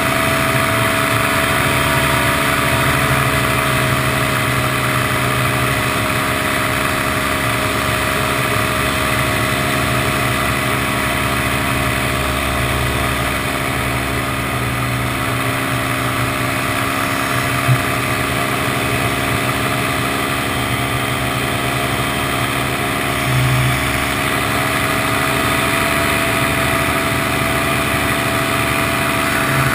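Paramotor engine and propeller running steadily in level flight, a constant drone, with one short click about two-thirds of the way through.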